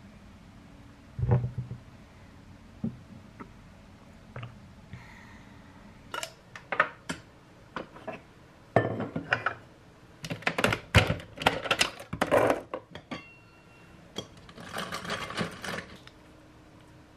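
A thump about a second in, then scattered clicks, clinks and knocks of a ceramic mug, a small glass carafe and a Nespresso Vertuo capsule coffee machine being handled, thickest in the middle. A short rustling clatter comes near the end.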